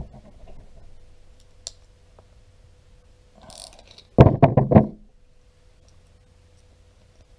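Wrenches clanking against a lock-on tire air chuck and its brass barbed fitting while the fitting is tightened: a few light clicks, a brief scrape, then a quick run of loud metal clanks a little over four seconds in.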